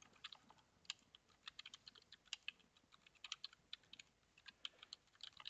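Faint, irregular clicking of keystrokes on a computer keyboard as a command is typed.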